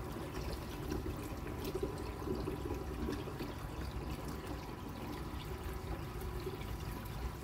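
Water from a running aquarium filter pouring and trickling steadily into the tank.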